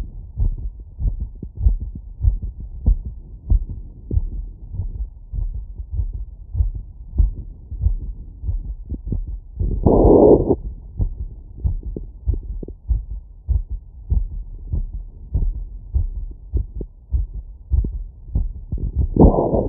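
Heartbeat heard through a stethoscope filtered to 20–1000 Hz after physical exertion: a regular run of low, dull beats. A brief louder rushing sound comes about half-way through and again near the end.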